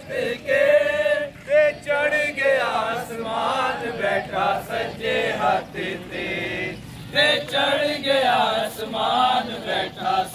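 A group of walking marchers singing a hymn together in a chant-like unison, with a short break about two-thirds through before the singing resumes.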